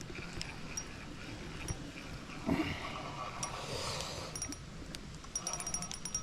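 Soft rustling handling noise, with a quick run of sharp, ringing clicks near the end.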